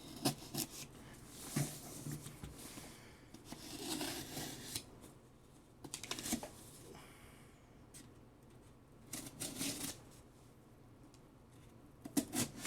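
A blade slitting the packing tape on a cardboard box: a series of scraping, rustling strokes with a few sharp clicks between them.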